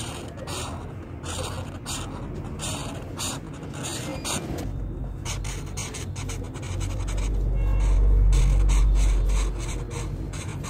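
Felt-tip marker tip scratching and rubbing across paper in short, quick colouring strokes. A low rumble swells in about two-thirds of the way through and is the loudest part.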